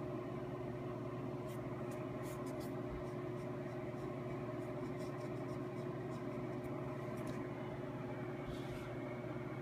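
A steady mechanical hum with several held tones, over which come faint light ticks and scratches of a No. 3 sable brush working ink onto paper, and a short soft rustle near the end.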